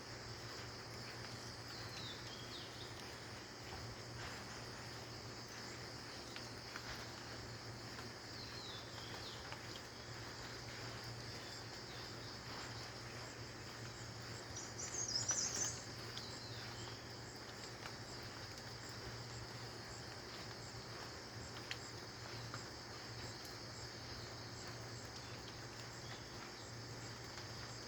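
Steady high-pitched drone of an insect chorus, with a bird giving a short burst of chirps about halfway through and a few fainter chirps elsewhere; a low steady hum sits underneath.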